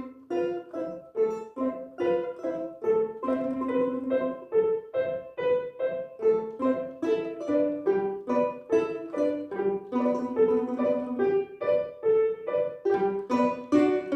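Instrumental duet playing a lyrical piece, a steady run of short melodic notes with a few longer held notes in the lower voice.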